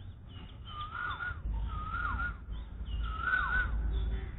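A bird calling every second or two, each call a short whistled note that bends down at its end, over a low rumble.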